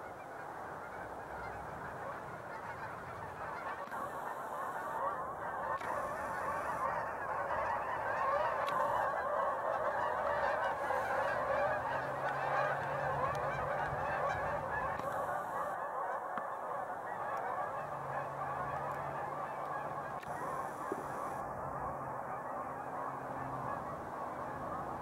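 A large flock of Canada geese honking all at once as it takes flight: a dense, continuous chorus of overlapping calls that swells toward the middle.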